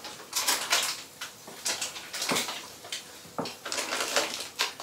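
Plastic fish bags, crumpled packing paper and the foil-lined insulated liner of a shipping box crinkling and rustling in irregular bursts as hands dig through them.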